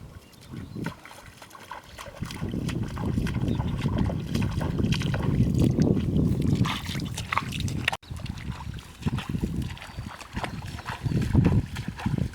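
Shallow water splashing and sloshing in irregular bursts, from wading and hand fishing.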